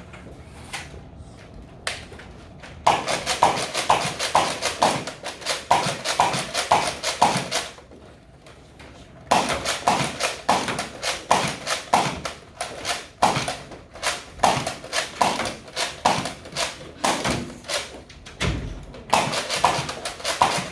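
A Nerf Rival blaster being fired again and again, a rapid run of sharp pops and knocks at about three a second. The run starts about three seconds in, breaks off for a second around the middle, then carries on.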